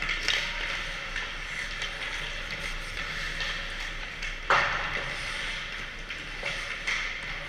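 Hockey skate blades scraping the ice and sticks clacking on pucks, with one loud sharp crack about four and a half seconds in.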